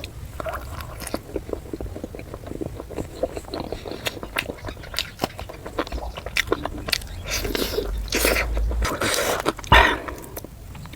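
Close-miked eating sounds of someone eating puri with chicken curry: irregular chewing and biting with many small clicks, busier in the second half and with one sharp louder click near the end.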